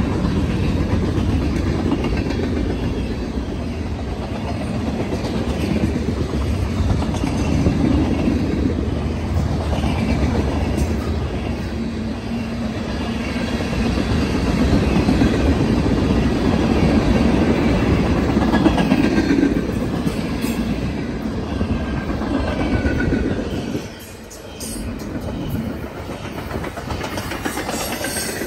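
Steel wheels of a passing CSX mixed freight train's cars rolling on the rails, a steady loud rumble with clicking over the rail joints. The rumble dips briefly near the end, where faint high wheel squeals come in.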